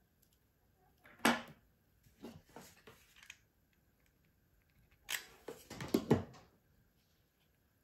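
Two short spells of clicking, clattering and rustling as craft tools are handled on a wooden table: scissors cutting cord and being set down about a second in, then a glue gun being handled and put down around five to six seconds in.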